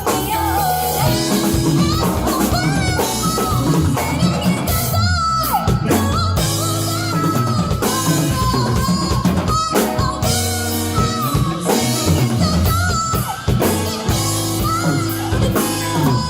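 A band playing a rock-pop song on drum kit, bass and guitar, with a sung melody over it.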